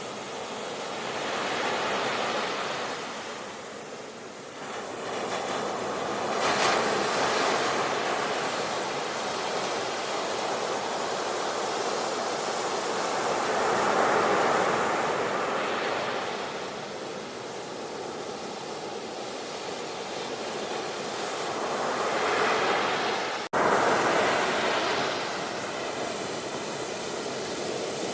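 Sea waves breaking and washing on the shore. They come in swells that rise and fade every few seconds, with a brief sudden dropout near the end.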